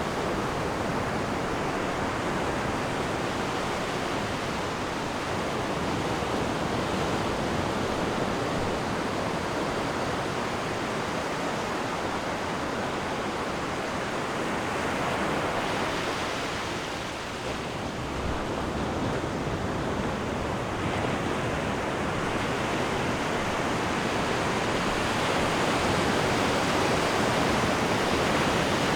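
Ocean waves breaking and washing on the shore in a steady, continuous surf, easing off briefly about halfway and building again near the end.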